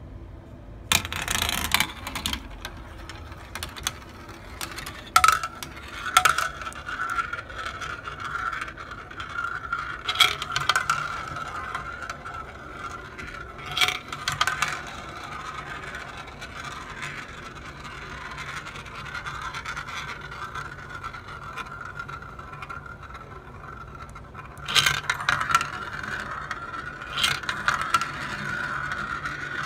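Glass marbles rolling through a plastic marble run: a steady whirring as they circle the funnels, broken by sharp clicks and clacks as they drop and strike the track.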